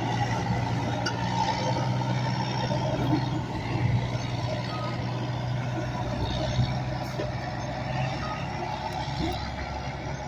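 GE diesel-electric switching locomotives running at low speed with a steady low engine hum as they move into the engine house.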